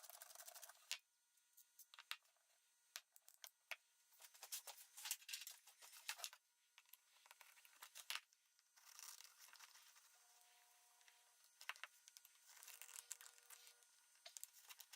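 Faint, irregular scratchy rasps and scattered clicks, like small parts being handled, scraped or rubbed at a bench.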